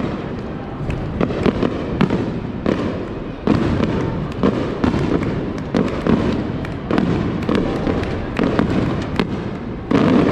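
Aerial fireworks going off in quick succession: many sharp bangs and crackles over a continuous booming rumble, with a louder burst near the end.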